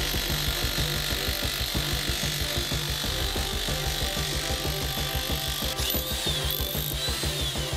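Corded electric demolition hammer with a chisel bit breaking up a concrete floor slab: a rapid, steady hammering. Background music plays under it.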